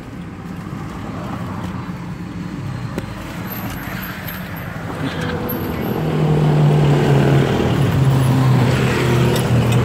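Road traffic with a motor vehicle's engine running. A low engine drone grows louder from about halfway through.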